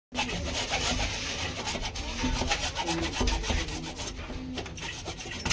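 A hand-held hacksaw blade sawing into a CPVC plastic pipe with quick back-and-forth strokes.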